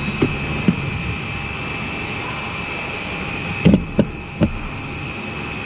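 A few short, dull knocks and clunks from the car's seat and the fire-extinguisher mounting under it being handled: two early, then three close together a little after halfway. They sit over a steady workshop hum with a faint high whine.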